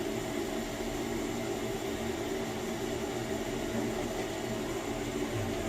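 Furnace running: a steady motor hum with an even, fan-like hiss.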